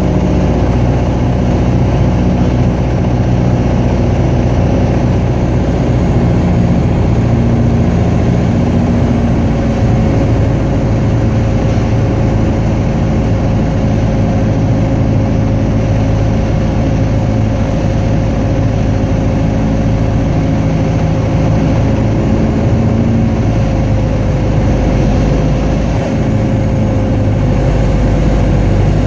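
Single-engine light aircraft's engine and propeller droning steadily, heard from inside the cockpit at steady power on approach to the runway; the pitch sags slightly near the end as power comes back.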